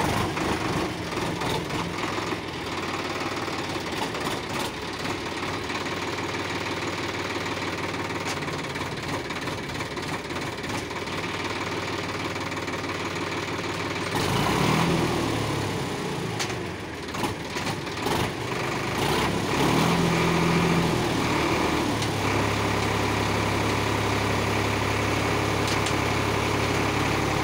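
Sonalika DI-35 tractor's diesel engine running while it works a front-end loader. Its note surges about halfway through and again a little later as the loader arm lifts and tips a bucket of sand, then settles into a steady, even run.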